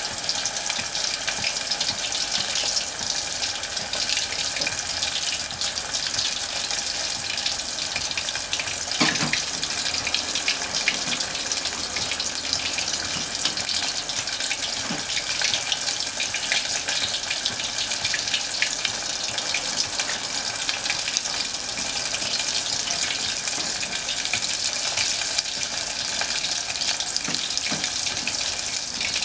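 Bone-in beef short rib pieces deep-frying in hot oil: a steady, dense bubbling and crackling, with a couple of faint knocks.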